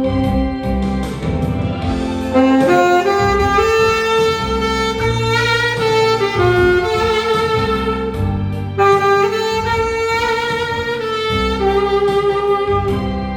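Tenor saxophone playing a slow, sustained melody over a backing track with bass and keyboard.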